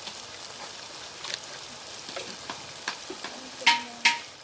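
Onion-tomato masala sizzling in coconut oil in a clay pot while spice powders are stirred in, with light scraping clicks from the stirring and two sharper clinks near the end.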